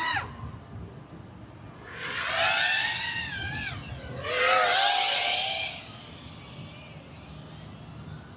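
iFlight Nazgul V2 FPV quadcopter's brushless motors and propellers, picked up by the DJI O3 Air Unit's onboard microphone. There are two bursts of high whine, about 2 and 4 seconds in, each sliding up and down in pitch with the throttle, over a low rumble of wind on the microphone.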